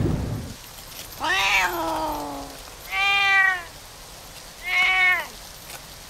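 Cartoon cat meowing three times, the first meow long and falling in pitch, the next two shorter.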